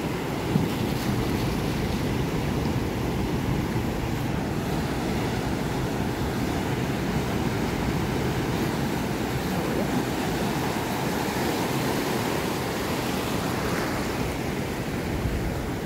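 Ocean surf breaking and washing up a sandy beach: a steady rush, with wind buffeting the microphone.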